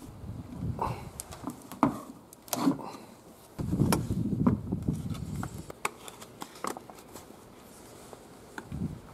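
Handling noise from a homemade wooden camera housing being assembled by hand: irregular small clicks and knocks of screws and wooden parts, with rubbing and rustling of its clear plastic wrapping. The rubbing is loudest a little before halfway through.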